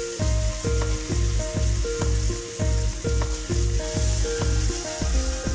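Bacon pieces sizzling in hot fat in a cast-iron skillet as the fat renders out, stirred with a spatula. Background music with a steady beat runs underneath.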